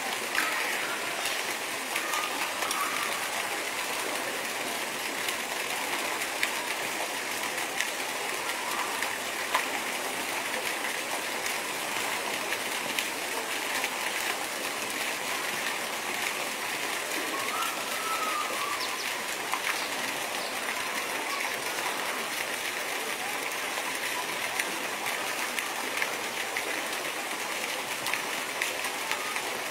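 Steady rush of running water, with a few faint short bird chirps over it.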